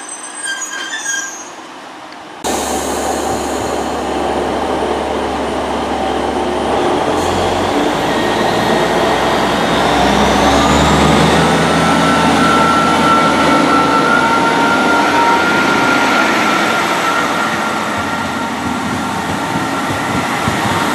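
Class 150 Sprinter diesel multiple unit's underfloor Cummins diesel engines running at the platform and then revving up as the train pulls away, with a rising whine a few seconds after the sound starts.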